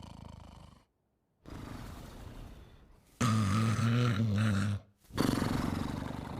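Cartoon dog character snoring: a run of about four long, rasping snores separated by brief pauses. The loudest, in the middle, has a low droning hum.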